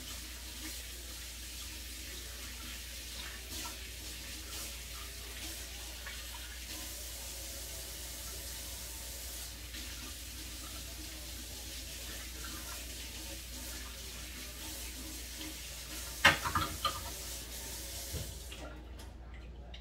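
Kitchen tap running steadily into a sink, with a few sharp knocks about sixteen seconds in; the water cuts off near the end.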